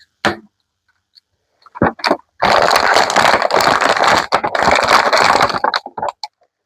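Action figure packaging being handled and opened: a few short clicks, then about three seconds of loud crinkling and scraping of plastic and card.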